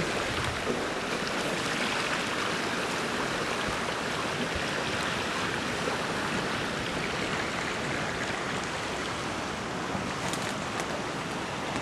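Steady rush of a river in spring ice drift: fast, rising water carrying broken ice floes past the bank.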